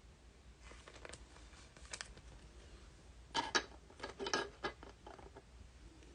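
Trading cards being handled and shuffled between packs: faint card slides and taps, with a run of sharper card flicks and clicks about three and a half to four and a half seconds in.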